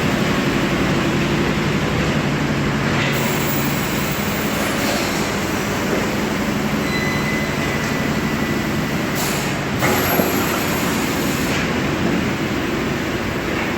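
Steady, loud hum of factory machinery running, with a few short hisses over it.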